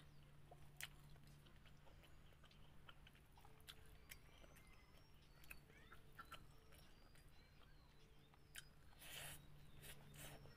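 Faint chewing and small mouth clicks of a person eating a rice meal by hand, over a low steady hum.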